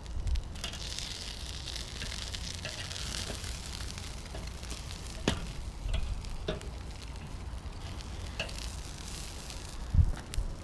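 Chicken sizzling uncovered as its fat melts off, a steady hiss with a few sharp pops.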